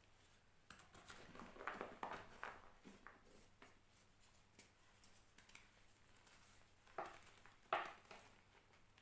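Reformed gym chalk being crushed: faint, crumbly crunches in the first few seconds, then two sharper crunches about three quarters of the way through.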